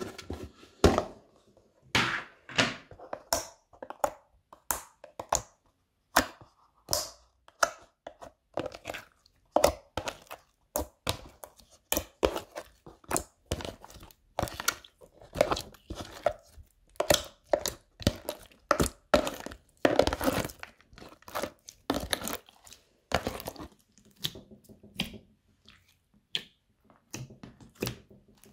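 Fingers squishing and pressing slime, a mix of thick pink slime, glittery beaded grey slime and clear red jelly slime, making irregular sticky pops and crackles about twice a second.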